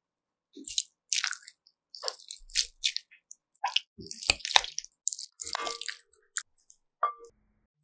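Metal potato masher pressing and breaking up a block of soft tofu in beaten egg: about a dozen irregular wet squishing strokes, with a couple of short ringing clinks in the second half.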